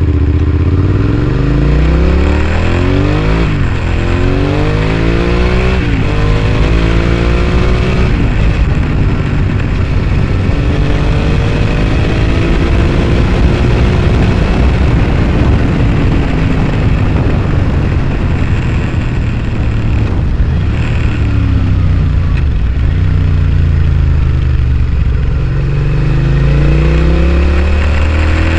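Suzuki SV650S's V-twin through a Scorpion exhaust while riding: the engine revs up and drops at each upshift, twice in the first six seconds, holds steady, falls off around twenty seconds in, then revs up again near the end.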